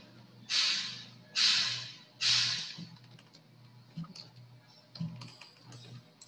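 Three short hissing bursts of noise about a second apart, each fading quickly, then a few faint computer keyboard clicks over a low steady hum.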